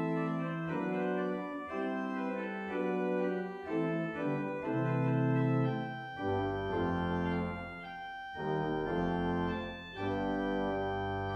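Church organ playing a closing piece in sustained chords that change every half second or so, with deep bass notes joining about halfway through.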